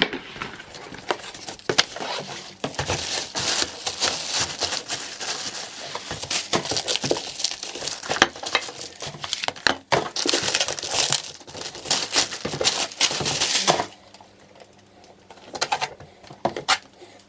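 Packaging being crinkled and handled, with a dense crackle broken by sharp clicks and knocks; it dies down about fourteen seconds in, leaving only a few light clicks.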